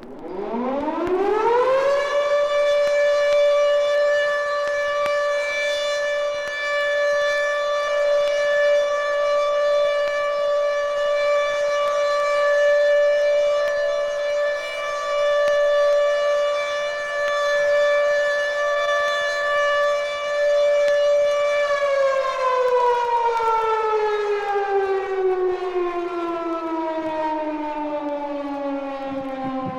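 A siren winds up over about two seconds to a steady high tone, holds it for about twenty seconds, then slowly winds down, falling in pitch.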